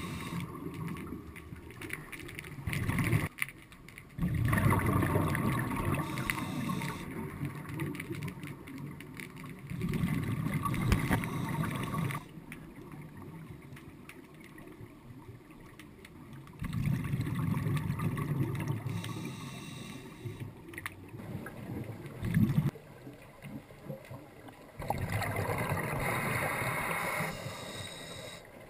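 Scuba diver's exhaled bubbles from the regulator, heard underwater: bursts of bubbling about two seconds long, recurring every six or seven seconds, with quieter stretches between breaths.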